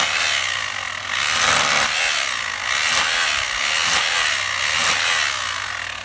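Electric chipping hammer chiselling old stone veneer and mortar off a wall, running continuously with uneven surges in loudness as the bit bites into the stone.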